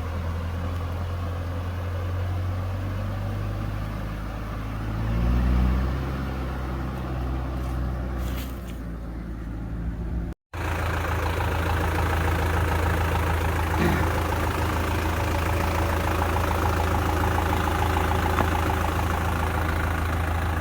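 Mitsubishi Canter 4x4 truck's diesel engine running steadily at low speed, rising briefly about five seconds in. The sound drops out for an instant about halfway, then the engine carries on.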